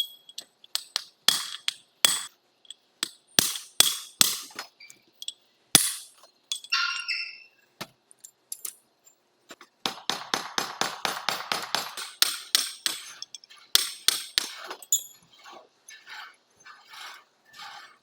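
Metal tools and parts clinking and knocking: a string of sharp taps, a ringing clink about seven seconds in, then a rapid run of clicks for about three seconds.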